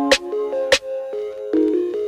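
Background electronic music: a stepping synth melody with sharp percussion hits.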